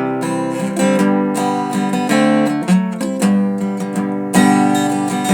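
Acoustic guitar strummed in a steady rhythm of chords, an instrumental passage between sung verses of a folk sea song.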